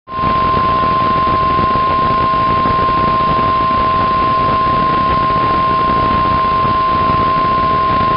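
Weather Radio Canada warning alarm tone: one steady high tone of about 1050 Hz, held unbroken over radio hiss, with a fainter lower tone beneath it. It is the alert that heralds the severe thunderstorm warning message.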